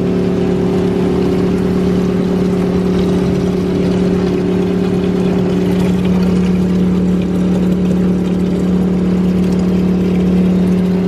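Coin-operated drinking-water vending machine running with a steady hum as water pours into a large plastic bottle.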